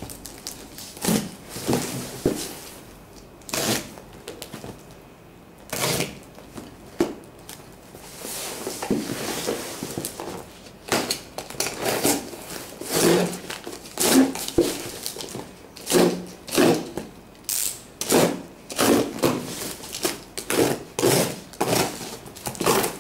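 Packing tape being peeled and torn off a cardboard box, heard as a long run of short, irregular ripping and crackling strokes, with the cardboard lid rustling as it is pried open.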